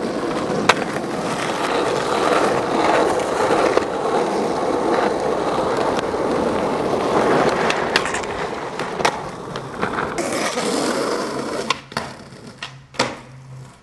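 Skateboard wheels rolling on concrete in a steady rumble, with sharp clacks of the board striking the ground about a second in, twice around eight and nine seconds, and several more near the end as the rolling stops.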